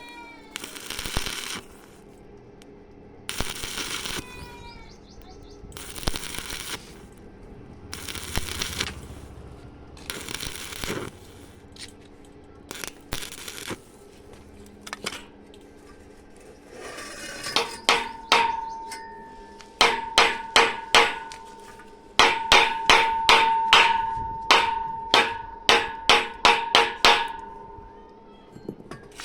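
About five short bursts of arc welding on thin sheet-metal pipe, each under a second and spaced a few seconds apart. They are followed by a long run of rapid hammer blows on the thin metal, which rings at a steady pitch.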